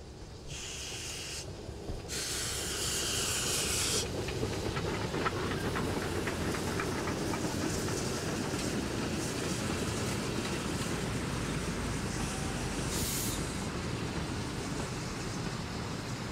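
Narrow-gauge steam locomotive No. 208 and its vintage coaches passing close by: two loud bursts of steam hiss in the first four seconds, then the coaches rolling past with a steady rumble and clicking wheels over the rail joints. Another short hiss comes later.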